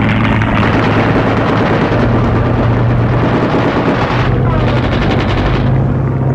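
Piston-engined bomber droning steadily in flight, heard from inside the cockpit: a constant low engine hum under dense engine and propeller noise.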